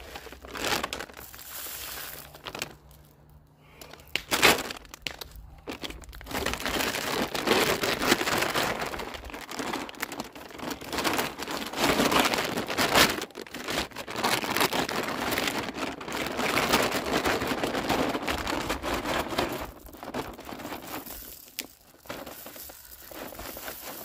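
Birdseed pouring from a plastic bag into a wire-mesh tube feeder, a rushing rattle of seed with the bag crinkling, in long uneven stretches that ease off near the end.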